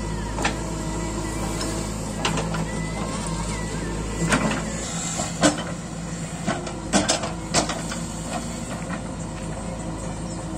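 Diesel engines of a JCB backhoe loader and a Swaraj tractor running steadily, with sharp knocks and clanks from the backhoe's bucket and arm as it digs into the soil. The clanks bunch up around the middle.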